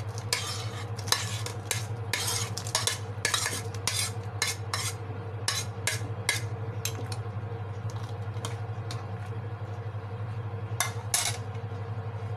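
Metal spoon scraping and clinking against a ceramic plate as chopped tomatoes are pushed off it into a pot: a quick run of scrapes for the first several seconds, then only a few, with a last pair near the end. A steady low hum runs underneath.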